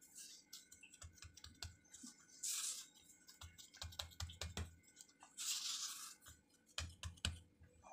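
Faint soft taps, pats and rubs of hands folding and pressing a stuffed paratha dough parcel on a stone rolling board, with two brief swishes of skin sliding over the floured surface.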